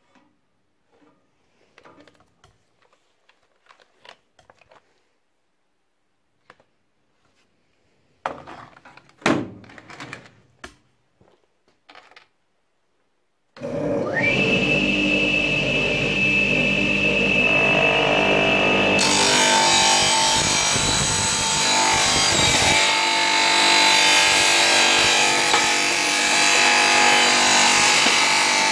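A plastic computer keyboard is handled, with light clicks and a few louder knocks. Then a wet tile saw with a diamond blade starts suddenly, its motor whine rising briefly before it settles into a steady loud run. About 19 s in the blade bites into the keyboard, and the sound turns to a harsh, continuous grinding as it cuts through the plastic and circuitry.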